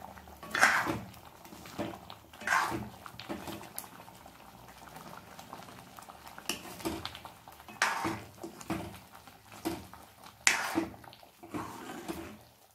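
A steel spoon stirring thick raw-banana and coconut curry in a non-stick pan, scraping the pan in irregular strokes, a few louder than the rest, over the low bubbling of the simmering curry.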